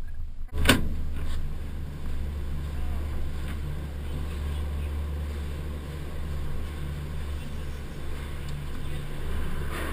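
Gondola lift cabin running into the station, heard from inside the cabin: a steady low rumble with a hum above it, after a sharp knock about half a second in.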